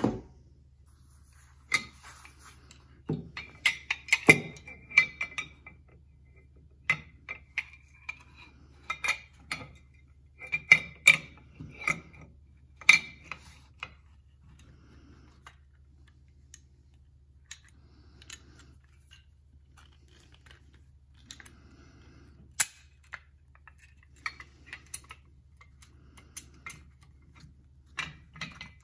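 Metal and polymer parts of a Hi-Point 995TS carbine clicking and clacking as they are handled and fitted on a table: scattered sharp clicks, busiest in the first half, over a faint low hum.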